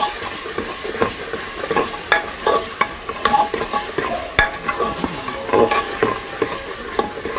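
Metal spoon stirring a spiced masala in a pressure cooker, clinking and scraping against the pot at irregular moments, while the masala sizzles in the hot pot.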